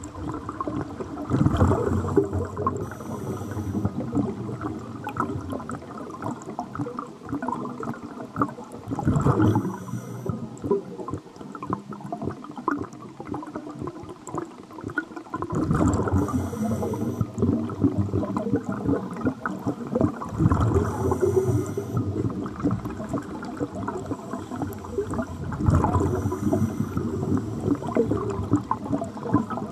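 Scuba exhaust bubbles gurgling underwater, heard through the water as a muffled, continuous bubbling with louder surges about every five to six seconds.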